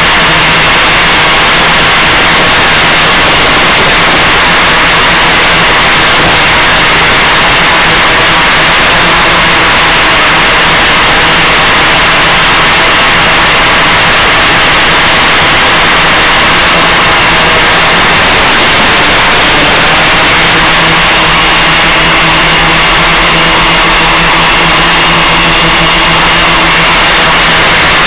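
Loud, steady hiss of static on the FPV video link's audio channel, with a faint steady hum under it.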